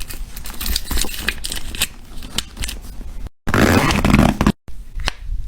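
Small items and packaging being handled during an unboxing: a dense run of clicks, taps and rustles, broken twice by abrupt cuts to silence.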